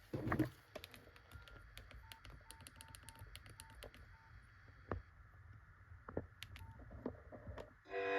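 Nokia 3109c mobile phone being handled and its keys pressed: a knock just after the start, then a string of sharp key clicks and about eight short, same-pitched keypad beeps as the menu is navigated to the next ringtone.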